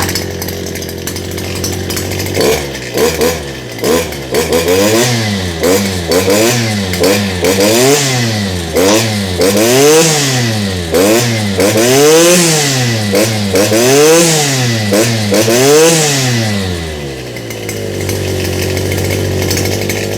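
Stihl FS 250 brushcutter's two-stroke engine idling, then revved up and down over and over, about once a second, before settling back to idle near the end.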